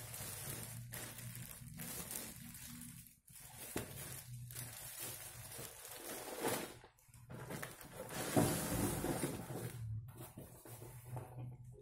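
Plastic wrapping crinkling and rustling as it is handled, then cardboard scraping and sliding as a laptop box is drawn out of a taped shipping carton, loudest about eight to nine and a half seconds in.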